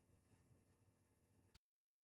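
Near silence: faint room tone, cutting to complete digital silence about one and a half seconds in.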